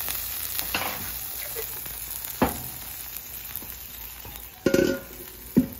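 Hash brown casserole cakes sizzling steadily on a Camp Chef flat-top griddle, with a sharp tap about halfway. Near the end a stainless steel mixing bowl clanks down twice on the griddle steel as it is set over the cakes, with a brief metallic ring.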